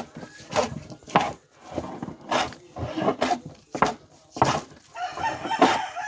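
Vintage wood plane pushed in repeated strokes over a board, shaving wood with a rasping scrape about twice a second.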